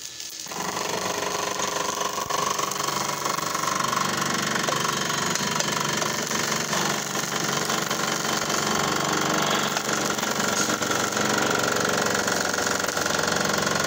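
Electric motor of a homemade hydraulic press running steadily and working a 12-tonne car bottle jack, which drives the press plate down onto a metal can and flattens it. The motor starts about half a second in.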